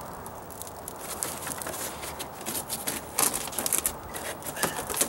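Short scraping and crackling handling noises as gloved hands dig stucco patch out of a plastic bucket, coming in quick clusters mostly in the second half.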